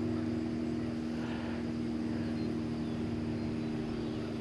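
Small electric boat motor running at a steady speed, a constant low hum.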